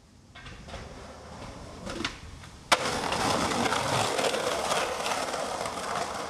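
Skateboard wheels rolling on concrete with a few clicks, then a sharp crack about two and a half seconds in as the board hits a concrete ledge, followed by a long grinding scrape of the trucks or deck along the ledge.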